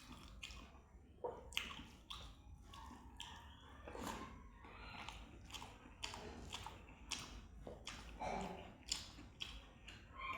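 A person eating a meal of rice and curry close to the microphone: wet chewing and mouth smacking, a string of irregular sharp clicks and squelches.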